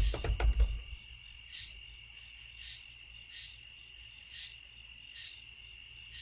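A few loud low thumps and clicks in the first second, then a steady high insect trill with a separate chirp repeating about once a second, typical of crickets.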